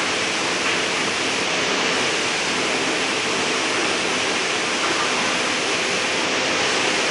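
Steady rush of air through a downdraft table's perforated grate. The table's 7.5 HP, 5,000 CFM direct-drive blower is running on a VFD at about half speed.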